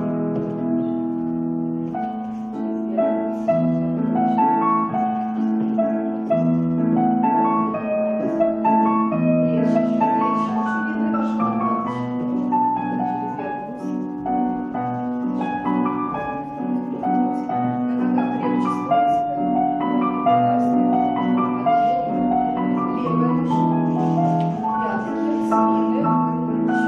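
Piano music playing continuously, a flowing melody over held bass notes, as accompaniment for the floor exercises.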